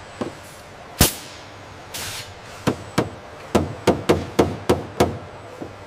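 A hand tool knocking on a metal panel: one sharp strike about a second in, a brief hiss near two seconds, then a quick run of about eight knocks and clicks in the second half.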